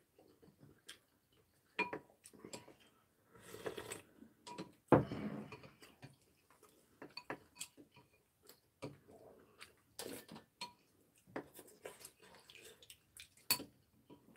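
Chopsticks and spoons clicking and scraping against ceramic bowls as two people eat sujebi, in scattered irregular clicks, with a louder, longer noise about five seconds in.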